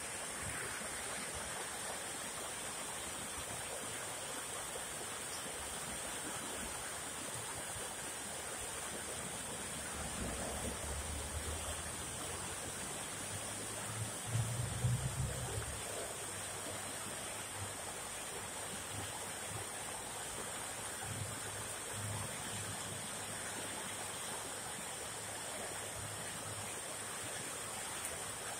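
Fast open stream running steadily, a continuous rushing of water. A low rumble swells in about a third of the way through and is loudest about halfway.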